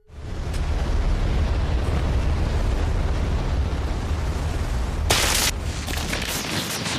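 Anime sound effect of a huge energy-blast explosion: a loud, deep, steady rumble that comes in suddenly, with sharp crackling bursts from about five seconds in.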